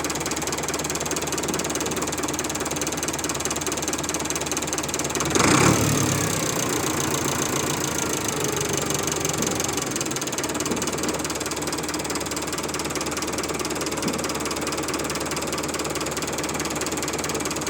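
New Holland TL75 tractor's diesel engine running steadily. About five seconds in, one loud bang from the power take-off as it is engaged: the strange bang the owners cannot explain and suspect comes from a part breaking in the PTO.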